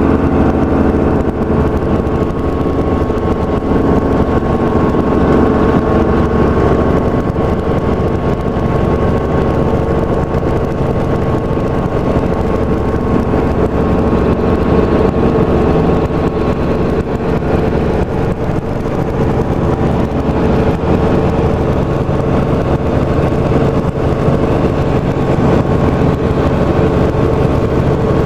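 Helicopter in flight: steady engine and rotor noise, heard from inside the cabin.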